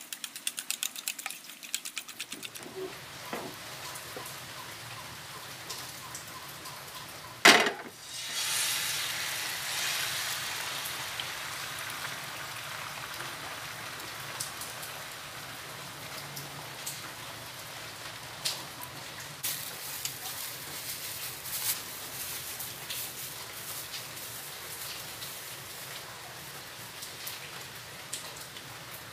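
A fork beating eggs in a ceramic bowl, rapid clicks against the bowl for about the first two seconds. Then beaten egg hits a hot oiled non-stick pan: a sudden loud sizzle about seven and a half seconds in, settling into steady crackling frying that slowly eases.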